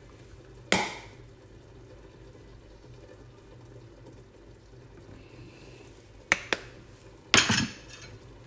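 Kitchen containers and utensils knocking and clinking while honey is added to the jar of chopped ingredients. There is a sharp knock about a second in, two light clicks near six seconds, and a longer clatter near the end, with a faint low hum in between.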